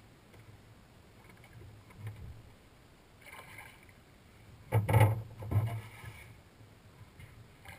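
Hollow knocks and clatter on a fishing boat's deck as gear is handled: two or three loud thumps about five seconds in, over a faint low hum.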